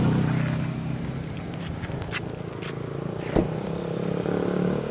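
Motor vehicle engines running at low revs, a steady hum of street traffic, with one sharp knock about three and a half seconds in.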